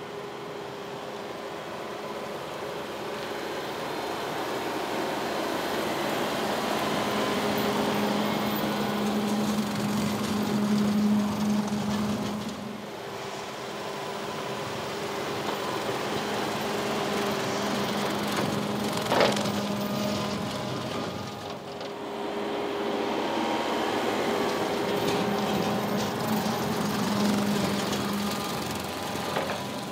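TYM tractor's diesel engine running under load while its PTO-driven rotary cutter (bush hog) mows tall grass: a steady engine hum over the cutter's whir, swelling and fading as the tractor passes. One brief sharp click about two-thirds of the way through.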